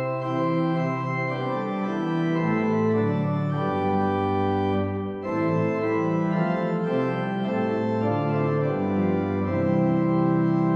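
Pipe organ playing chords on its principal chorus: the 8-foot principal, 4-foot octave and 2-foot fifteenth drawn together, a bright, clear sound. The chords change every second or so, with a brief break about five seconds in, and end on a held chord.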